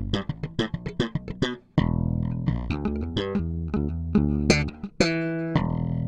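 Electric bass, a Yamaha BBNE2, played through a Markbass Compressore tube compressor pedal: a fast run of plucked notes, a brief break just before two seconds in, then a slower phrase of held and short notes, with a bright, ringing note about five seconds in.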